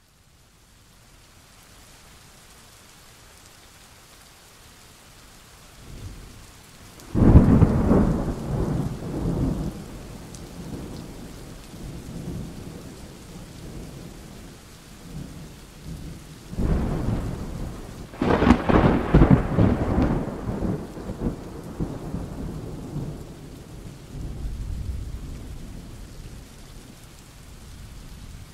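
Thunderstorm: steady heavy rain hiss with a loud thunderclap about seven seconds in that rolls on for a few seconds, a second, longer rolling thunder near the middle, and a fainter rumble later.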